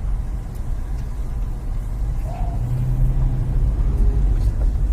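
Car engine and road rumble heard from inside the cabin as the car drives slowly along a rough, overgrown road: a steady low rumble that grows a little heavier about halfway through.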